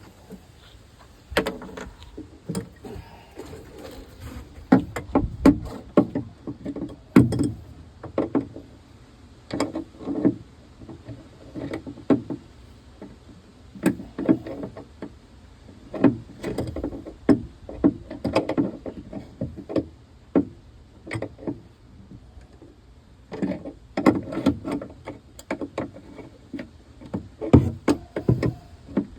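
Irregular knocks, clunks and rattles of heavy wood-lathe parts and packing being handled, coming in clusters with short pauses between.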